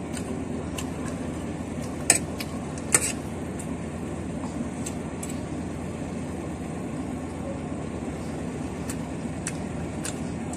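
A metal spoon clinking and scraping against a plate of rice now and then, with two sharper clinks about two and three seconds in, over a steady low background hum.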